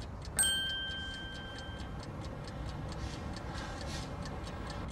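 Fast, steady ticking, about four to five ticks a second. A single bell-like chime is struck about half a second in and rings on for more than a second.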